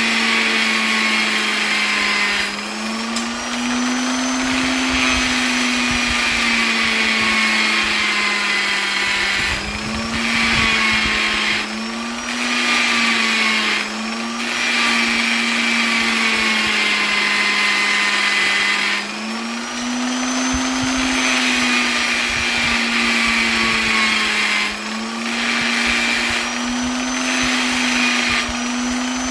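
Electric polisher running steadily, its motor hum with a hiss above it. The pitch shifts slightly up and down every few seconds, with brief small dips in level.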